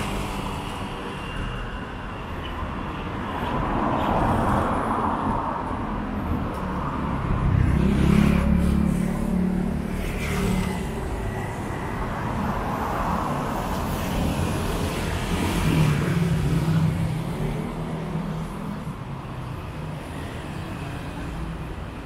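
Road traffic on a city street: several vehicles pass, their engine noise swelling and fading, the loudest with a low engine note about eight seconds in.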